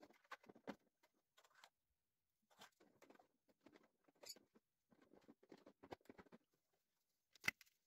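Faint scratchy rustles and small clicks of hands handling a 3D-printed plastic model airplane, fingers rubbing and pressing on its hollow shell, with one sharper click near the end.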